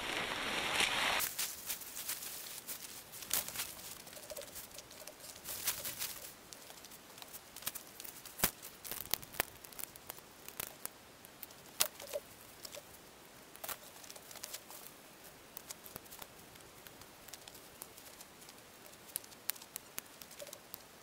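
Nylon tent fabric rustling loudly as the tent comes out of its stuff sack, then a long run of sharp clicks and light knocks as the sections of a shock-corded tent pole are snapped together and the tent body is clipped onto the poles.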